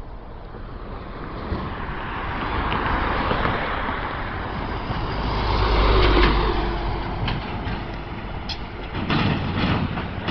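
Dump truck driving past close by: its engine and tyres grow louder, are loudest about six seconds in, then fade as it pulls away. A few knocks and rattles come near the end.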